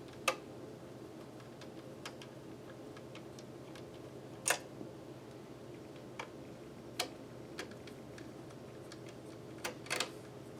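Sharp, scattered clicks and taps of a plastic NAS casing being handled as its side cover is fitted and refitted, about eight in all with the loudest about halfway through, over a steady low hum.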